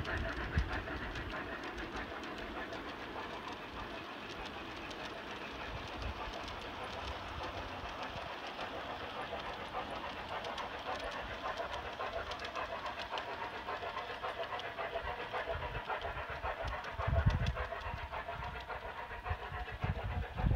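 G-scale model train running along garden track, its wheels clicking steadily over the rail joints under a constant mechanical hum. A couple of short low rumbles come near the end.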